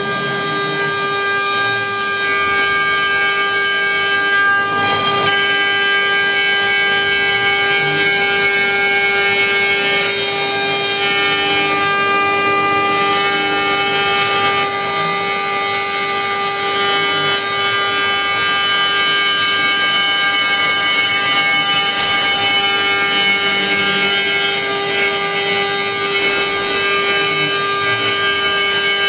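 CNC wood router spindle running at a steady pitch, an end mill cutting a relief into a wooden board, with a constant whine and the rasp of the bit in the wood shifting a little as the cut moves.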